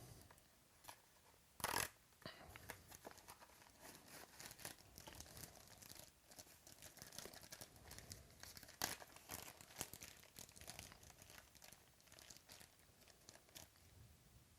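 Trading card pack wrapper being torn open and crinkled, quietly and in irregular crackles, with a couple of sharper clicks near the start and halfway through.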